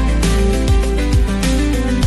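Background music: a guitar-led tune over a steady beat with a strong bass.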